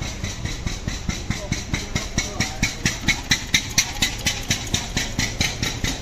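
An engine idling with a slow, even chuffing beat, about five to six beats a second. The beat grows louder toward the middle, then eases off a little.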